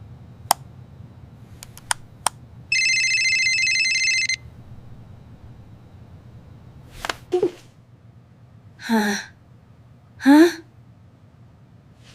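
A few sharp taps, then a phone ringing for about a second and a half as the number is called back. Two short vocal sounds follow near the end, the second a questioning "huh?".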